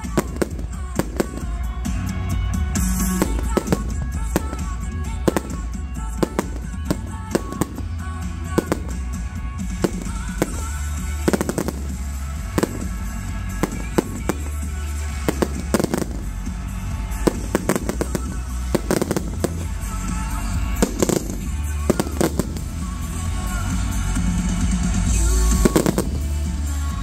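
Fireworks going off in a steady run of sharp bangs, one every second or so, over loud music.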